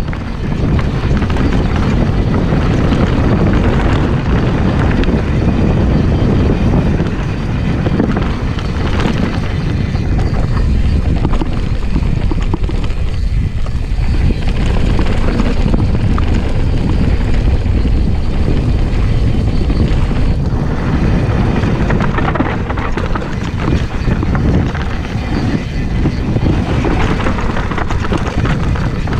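Wind buffeting the action camera's microphone as a mountain bike rides fast down a dirt singletrack, with the tyres rolling over dirt and gravel and the bike rattling over bumps.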